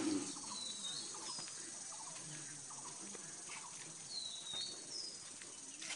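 A few faint, short, high bird chirps, about a second in and again around four to five seconds in, over a quiet outdoor background.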